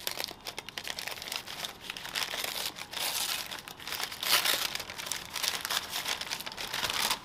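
Brown paper takeaway bag being unwrapped by hand: continuous crinkling and rustling of the stiff paper, with tearing as the taped folds are pulled apart, loudest about four seconds in.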